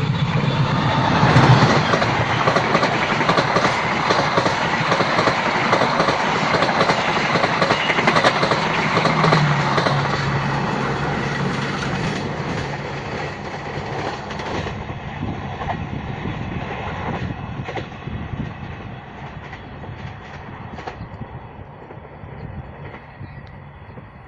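Passenger train passing close by, wheels clattering over the rail joints, loudest at first and then slowly fading as it moves away.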